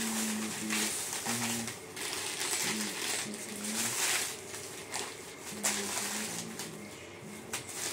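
Thin plastic shopping bag rustling and crinkling in a series of bursts as snack packets are handled and packed into it, with faint low voices in between.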